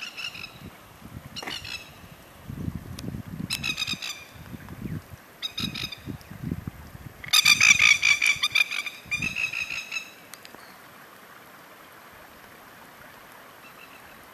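A bird calls in loud bursts of rapid, chattering notes, several times over, the loudest about seven to eight seconds in. Low rumbles come between the early bursts, and a faint steady hiss of rain on the water follows after about ten seconds.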